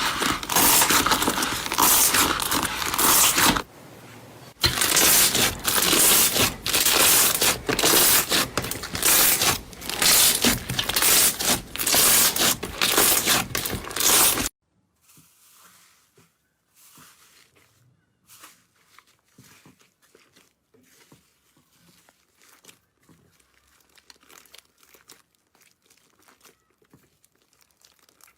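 Slime being kneaded and pressed by hand, giving dense crackling and crinkly popping, with a short lull about four seconds in. About halfway through it cuts to a much fainter stretch of scattered soft crackles and clicks.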